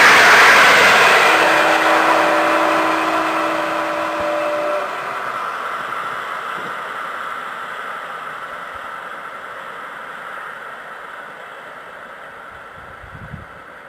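Electric-hauled passenger train running away down the line: the rumble of its coach wheels on the rails fades steadily into the distance. A steady ringing tone sounds for a few seconds, starting about a second in.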